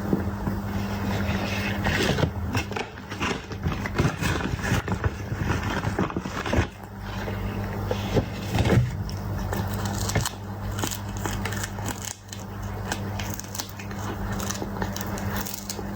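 A cat chewing and crunching food close to the microphone: a quick, irregular run of crunchy clicks, over a steady low hum.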